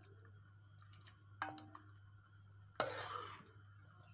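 A metal spoon knocks against the inside of a metal pressure cooker pot of beef and broth. A short ringing clink comes about a second and a half in, and a sharper knock with a brief scraping rustle comes near three seconds, over a faint steady hum.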